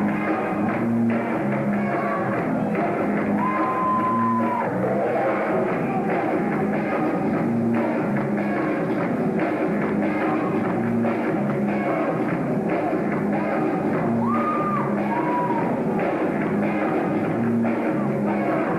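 Loud rock music with a steady beat and a few long held high notes.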